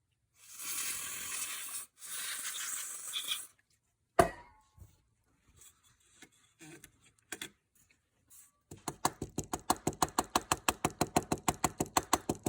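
Aerosol electrical contact cleaner sprayed onto a keypad circuit board in two hissing bursts, each about a second and a half long. Then a sharp click, a few small handling sounds, and over the last four seconds a fast, even run of light clicks, about six a second.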